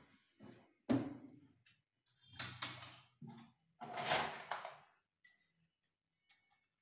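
Handling noise on a cabinet carcass while a rolling shutter is fitted: a sharp knock about a second in, then two longer bouts of scraping and clattering as the plastic fittings and tools are handled, ending in a few small clicks.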